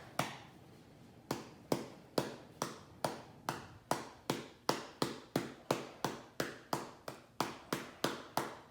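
A hand slapping a fried chicken sandwich in a steady run of sharp taps, about three a second, after a pause of about a second.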